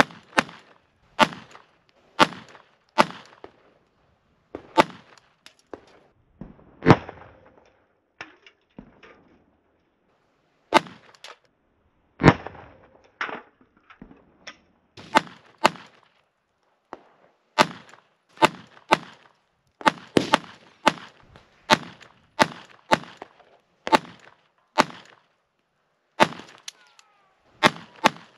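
Beretta 21A pistol firing .22 LR rounds: a long string of single sharp shots, mostly half a second to a second and a half apart, with a pause of about two seconds partway through.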